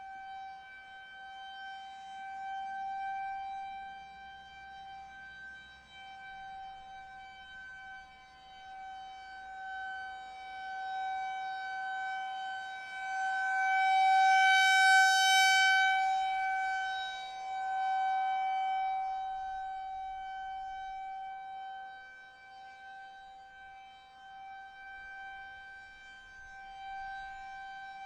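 Federal Signal 2001-130 electromechanical siren sounding a steady full-alert tone. The pitch holds level while the loudness rises to a peak about halfway through and then falls away again, as the rotating horn sweeps toward the listener and past.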